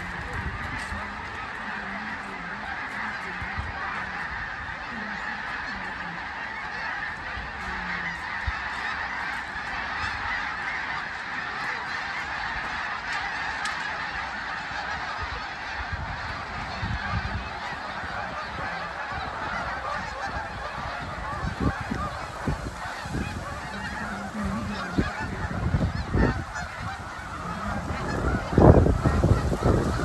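A huge mixed flock of snow geese and Canada geese calling, a dense, unbroken clamour of many honks. Low rumbles come in from about halfway and are loudest near the end.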